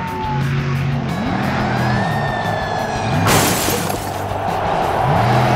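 Cartoon sound effect of a monster truck's engine revving up and down several times over background music, with a short rushing burst a little over three seconds in.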